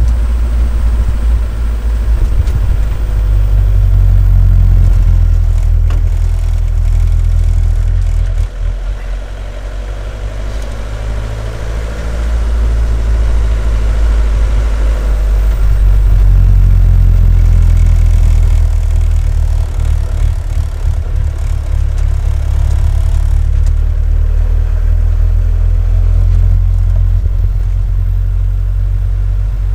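Mercedes 206D van's diesel engine running, heard from inside the cab. Its low drone swells and eases several times as the van speeds up and slows through the streets.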